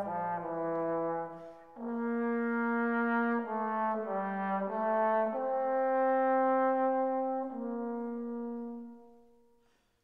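Background music: a slow melody of long held notes that fades out over the last two seconds or so.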